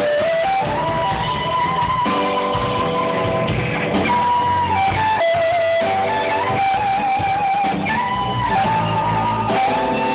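Live electric guitar and bass guitar playing a slow song, with a lead guitar line of sustained notes and bends over the bass.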